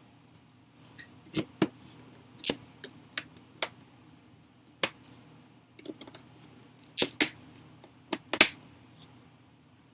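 A series of irregular sharp clicks and taps from hard objects being handled during a laptop repair, the loudest near the end, over a steady low hum.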